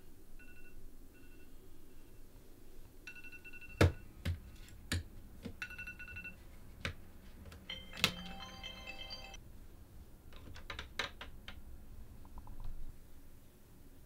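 Phone alarm going off in short repeated beeping bursts, then a denser burst of tone that stops about nine seconds in. Several sharp knocks of a hand on the nightstand come in between.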